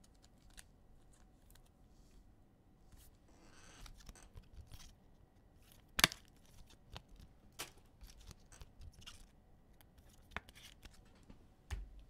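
Basketball trading cards being handled and sorted from a pack: faint scrapes and light clicks, a brief rustle about three seconds in, and one sharper click about six seconds in.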